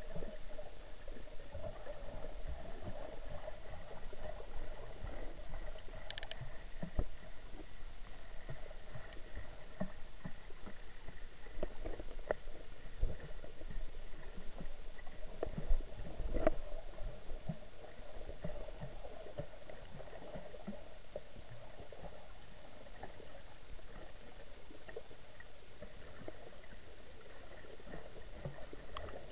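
Muffled underwater sound picked up by a camera submerged in lake water: a steady gurgling rumble with scattered small clicks and knocks, busier in the first half and steadier from about 18 seconds on.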